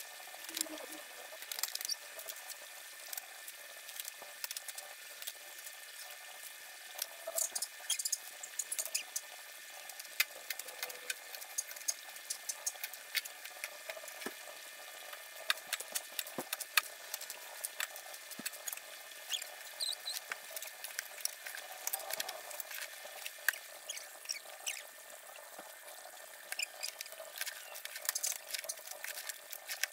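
Water trickling and pattering steadily, with many small irregular clicks and ticks through it.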